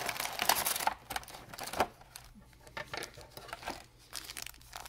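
Clear plastic packaging crinkling and crackling as it is handled. The crackling is dense for about the first second, then turns to scattered clicks, with one sharp click a little under two seconds in.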